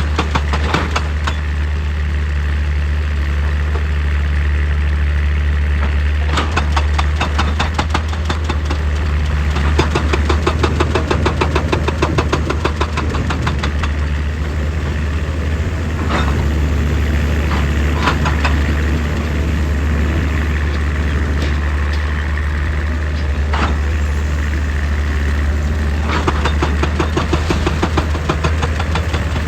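Excavator's diesel engine running steadily with a deep drone. Several spells of fast, even clattering from the machine working rock come on top of it.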